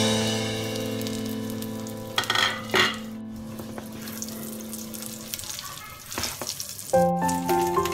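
Egg fry sizzling in hot oil in an uncovered frying pan, with two quick clatters of the lid and spatula against the pan a couple of seconds in. Background music with held notes fades out midway and starts again near the end.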